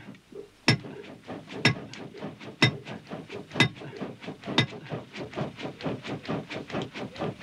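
Blacksmith's hammer striking hot iron on a stone anvil, with ringing blows about once a second. From about five seconds in, these give way to a faster run of lighter taps, about four a second.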